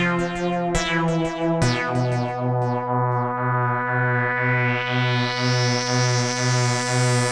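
Yonac KASPAR software synthesizer playing a sustained chord with a low pulse about twice a second. New notes strike at the start and again about one and a half seconds in, then the top end opens up in a slow, rising filter sweep from about halfway.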